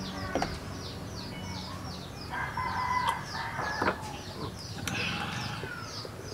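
A rooster crowing, a held call of about a second and a half starting some two seconds in, with a shorter call near the end. Under it runs a steady series of rapid high chirps, about five a second, and a few light knocks of drinking glasses being handled.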